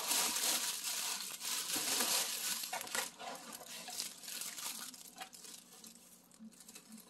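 Cardboard box being opened by hand, its flaps and the tissue paper inside rustling and crinkling. The handling is busiest in the first few seconds and dies down near the end.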